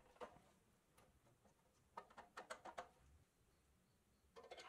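Faint clicks and taps of a steel axle and wheels being handled against a toy truck's pressed-steel body: one click, then a quick run of about six clicks about two seconds in, and another cluster near the end.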